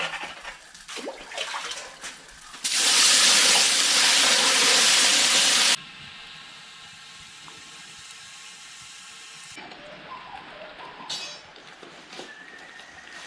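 Light clinks of kitchen utensils, then a loud rush of running water for about three seconds that cuts off suddenly.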